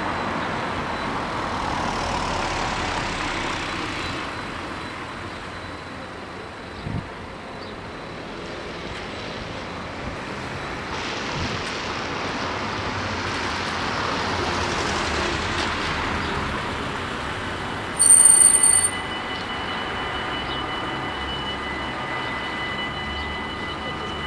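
Road traffic passing over a street level crossing. About three-quarters of the way in, the crossing's warning bells set off with a short loud burst and then ring steadily, signalling an approaching train as the half-barriers begin to lower.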